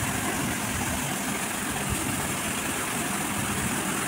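Steady, even mechanical whir of a running motor, unchanging throughout.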